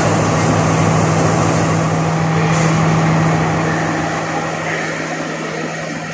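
Diesel train engine idling at a station platform: a steady deep hum with a noisy rumble over it, easing down a little about three and a half seconds in.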